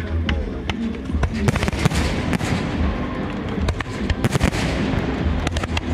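Aerial fireworks going off in rapid succession: a dense run of sharp bangs, with several bigger bursts that trail off into crackling.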